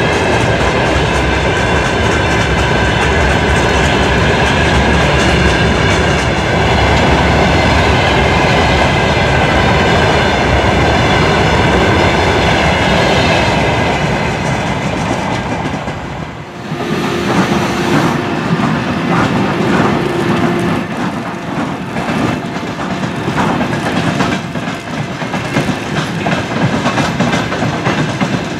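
Freight train of open-top wagons rolling past close by, its wheels clacking over the rail joints. About sixteen seconds in, it cuts to another passing freight train whose wheels clatter with many sharp knocks.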